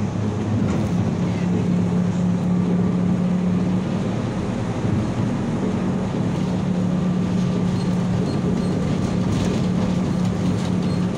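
Tatra T3 tram in motion, heard from inside the passenger saloon: steady running noise with a low hum that briefly fades about four seconds in and then returns.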